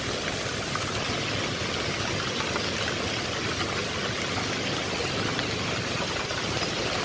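Heavy rain and rushing floodwater: a steady, dense hiss of water.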